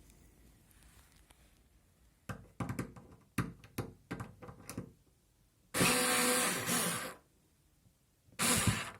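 Parkside cordless screwdriver motor whirring in short bursts: a series of brief clicks and blips, then a run of about a second and a half, then one more short burst near the end.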